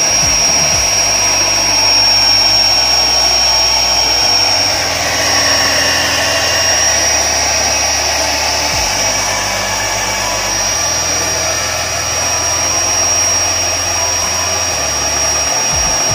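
Bajaj Majesty electric hand mixer running at a steady speed, its twin beaters whipping thick cream in a bowl: a constant high motor whine over a rushing noise.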